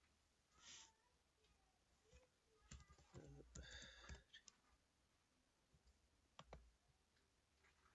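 Faint computer mouse clicks and keyboard typing: a short run of key taps about three seconds in and a single mouse click later.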